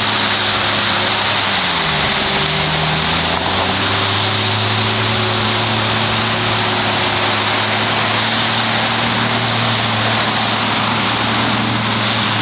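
Boat engine running steadily at speed over rushing water. Its pitch dips briefly about two seconds in, then comes back up.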